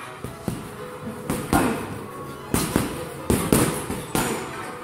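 Boxing-gloved punches striking heavy punching bags, landing as sharp thuds mostly in quick pairs, several times.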